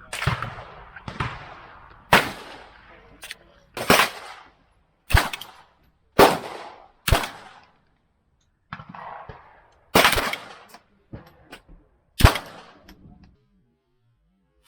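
AR-15 pistol firing single semi-automatic shots at an uneven pace, about ten in all, each crack followed by a short echo, with a few fainter shots among them.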